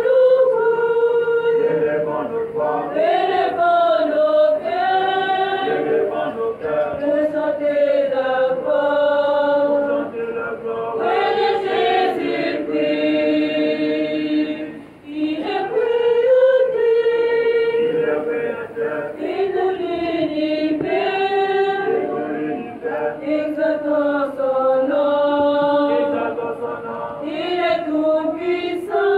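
A choir singing held notes, with a short break about fifteen seconds in.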